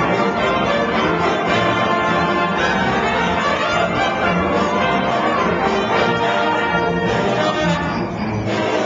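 High school orchestra playing, with strings and brass sounding together steadily.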